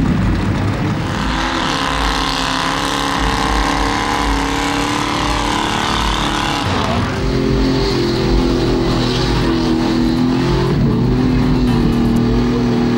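Four-wheel-drive trucks' engines revving hard under load as they plow through a deep mud pit. The engine pitch holds, then falls and climbs again with the throttle, around seven seconds in and again near the end.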